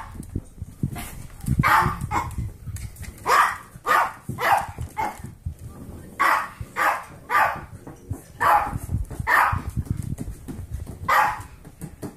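A small dog barking in play: about a dozen short barks at irregular intervals, with low thumping underneath.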